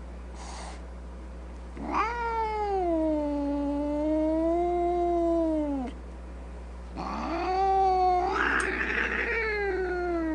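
Two long, drawn-out, wavering yowls, the first lasting about four seconds, the second starting about seven seconds in and rougher in its middle, over a steady low hum.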